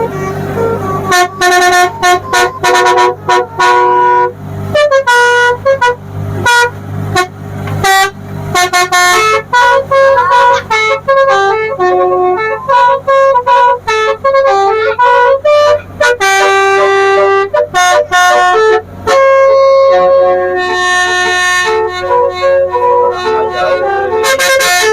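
Telolet basuri musical horn playing a tune: a rapid string of short horn notes at changing pitches, several sounding together, with a few longer held notes.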